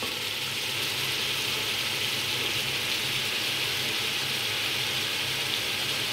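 Beef, onions and tomatoes frying in an aluminium pot, a steady even sizzle.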